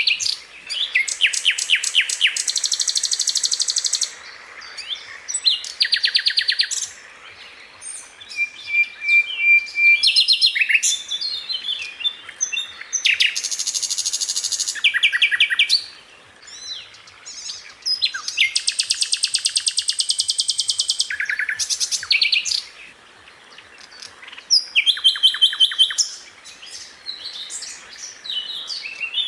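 Sikatan londo flycatcher singing: high, rapid rattling trills and runs of sharp notes in phrases of a second or two, repeated over and over with short pauses between.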